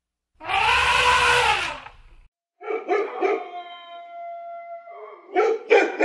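An elephant trumpets once, loud, rising then falling in pitch. Then a dog howls on a long steady note and breaks into a few short barks near the end.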